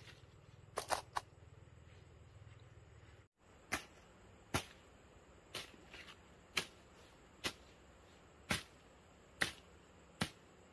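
Short-handled hoe chopping into grassy soil: eight sharp strikes, about one a second. A few lighter clicks come about a second in.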